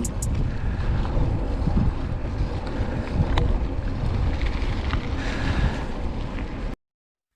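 Wind buffeting the microphone over the rumble of mountain-bike tyres on a dirt trail, with a few sharp clicks and rattles. It cuts off abruptly near the end.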